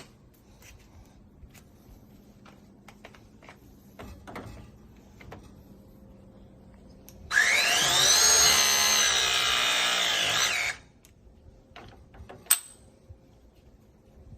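Battery ProPress tool's motor driving the jaws shut on a 7/8-inch copper fitting: a loud whine that rises in pitch as it starts, holds steady for about three and a half seconds, and stops on its own when the press cycle is complete. Light handling clicks come before it, and one sharp click follows about a second and a half later.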